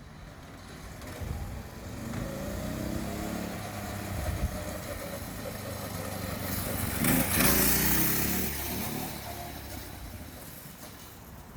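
Mini bike with a small single-cylinder engine riding past. It grows louder, is loudest as it goes by about seven seconds in, then drops in pitch and fades away.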